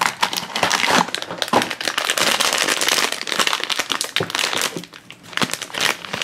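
Blind-box toy packaging being handled and opened by hand: irregular crinkling and crackling, quieter for a moment about five seconds in.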